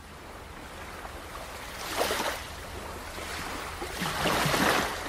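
Ocean waves washing in, swelling twice: about two seconds in and again near the end.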